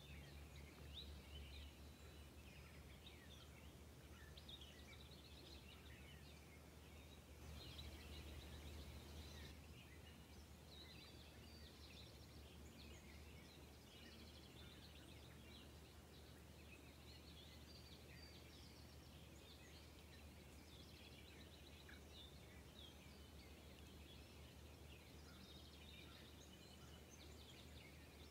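Faint birdsong: many small birds giving short chirps and quick trills throughout, over a low steady rumble.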